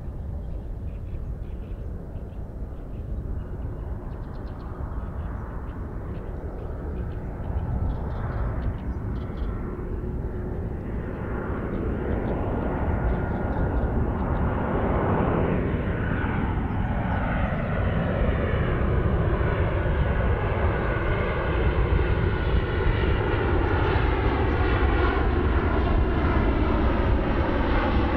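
Jet engines of a Boeing 737-800 airliner on approach with its landing gear down, a rushing noise growing steadily louder as the aircraft comes in low overhead, with tones that sweep down and up in pitch during the second half.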